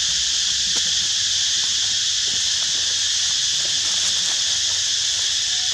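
Steady, high-pitched chorus of insects, an unbroken shrill hiss with no pauses, with a few faint rustles underneath.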